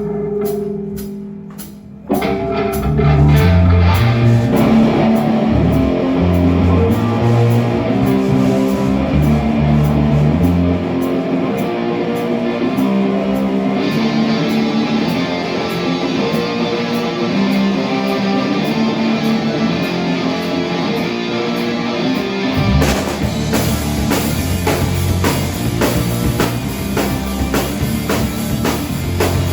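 Rock band music with guitar and drum kit. A single held note fades for the first two seconds, then the full band comes in with a steady beat, growing fuller near the end.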